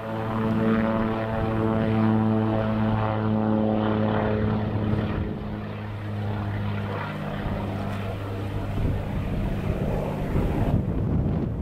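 A floatplane's propeller engine drones loudly as the plane flies low past, its pitch dropping as it goes by about four to five seconds in. The engine tone then fades into a rushing, wind-like noise near the end.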